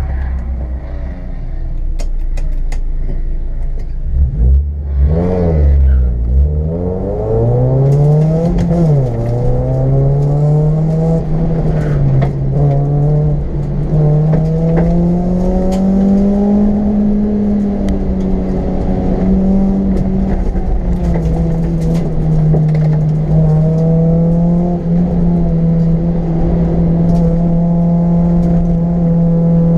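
Competition car's engine heard from inside the cabin, pulling away from the start line and accelerating hard through the gears: the revs sweep up and down about five seconds in, climb, drop sharply at an upshift about nine seconds in, climb again, ease off, then hold fairly steady near the end.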